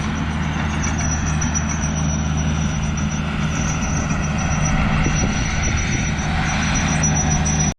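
John Deere 450K crawler dozer's diesel engine running steadily as the machine works the lot.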